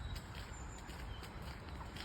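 Footsteps on a path, a light irregular crunching, over a steady low rumble of wind on the microphone, with a brief high chirp about halfway through.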